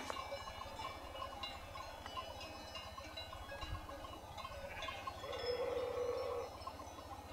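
Bells on a grazing flock of sheep tinkling irregularly, with one drawn-out sheep bleat about five seconds in.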